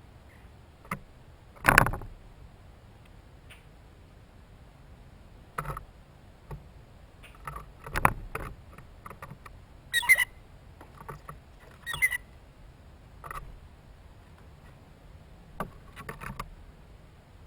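Irregular sharp taps and knocks, a dozen or so, the loudest about two seconds in and about eight seconds in.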